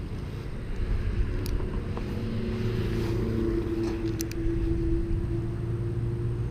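A steady engine drone with a held hum that grows louder from about halfway through, with a few faint clicks.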